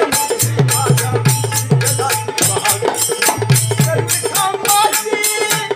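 Marathi devotional bhajan music with no words: a drum beats a steady rhythm of low strokes that bend in pitch, and quick, even metallic strikes keep time over it, with a melody line wavering above.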